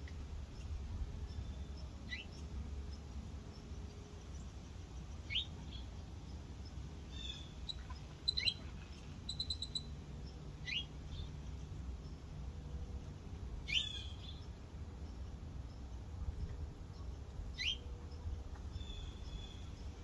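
Wild birds calling: about six short calls that slide downward in pitch, spaced a few seconds apart, with a quick run of brief high chirps from another bird around the middle. A steady low rumble runs underneath.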